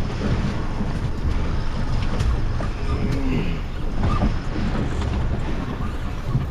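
Wind buffeting the microphone over a steady low rumble of the boat and the sea around it.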